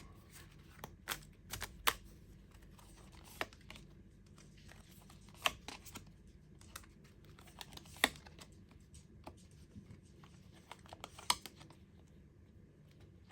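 Tarot cards being handled and laid on a table: sharp card clicks and slaps at irregular intervals.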